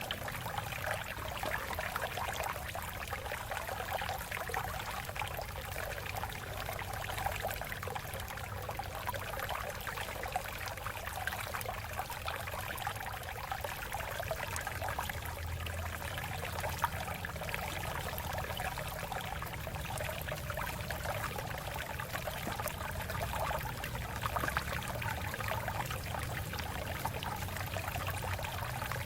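Shallow water flowing and trickling over rocks, a steady babble of splashes.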